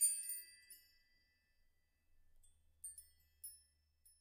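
Background music of high chime-like notes, like a glockenspiel, ringing out and fading in the first second, followed by a few sparse single notes.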